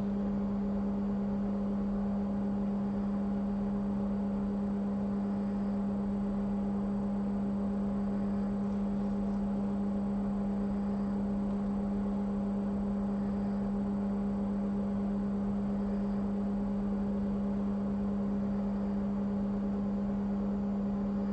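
Steady electrical hum from powered workbench equipment: a strong low tone with a few fainter higher tones above it.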